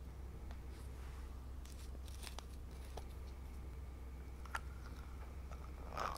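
Faint clicks as a small glass glitter bottle is opened, then a metal spatula scraping against the bottle's glass neck as it scoops loose glitter, with the loudest scrape near the end.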